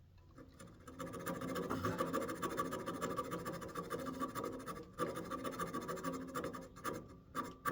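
A hand rasp scraping across a walnut rosette to cut a decorative detail, in two long rough passes with a short break about five seconds in.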